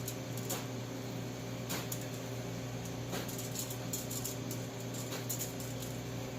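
Scattered light clicks and taps from hand tools and copper tubing being handled, about a dozen at irregular times with a cluster a little after the middle, over a steady low electrical hum.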